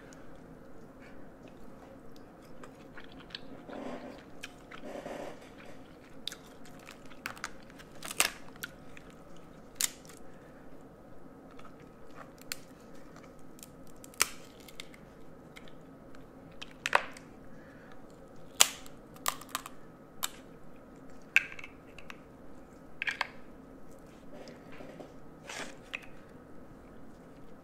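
Close-up chewing and mouth sounds of seafood boil being eaten, broken by many short, sharp clicks and snaps as shrimp and crab shells are peeled by hand.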